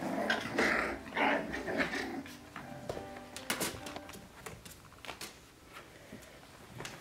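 A litter of month-old Australian Cattle Dog puppies growling and yipping as they play-fight, mostly in the first couple of seconds, followed by scattered sharp clicks.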